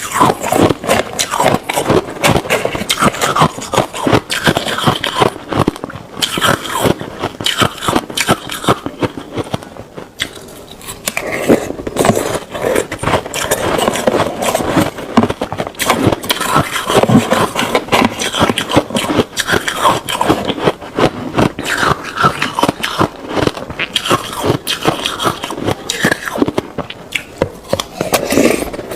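Ice being bitten and chewed close to the microphone: dense, rapid crunching and cracking, with a brief lull about ten seconds in.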